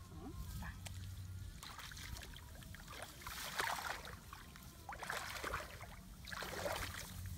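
Shallow muddy water splashing and sloshing as a person wades through it and works a mesh net bag, in several separate splashes about a second and a half apart.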